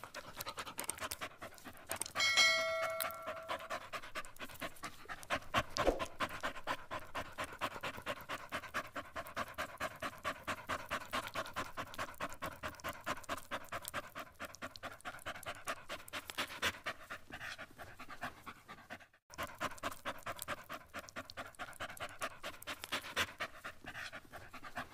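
Shih Tzu dog panting in a quick, even rhythm of about three breaths a second. About two seconds in, a brief ringing tone sounds for about a second.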